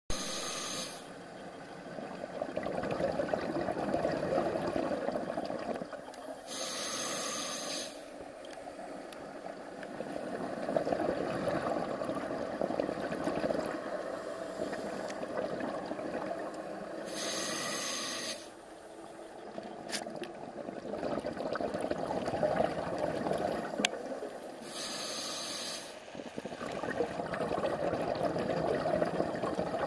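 A scuba diver breathing underwater through an open-circuit regulator. Each inhalation is a short hiss, about four breaths in all, and each is followed by several seconds of bubbling exhaust.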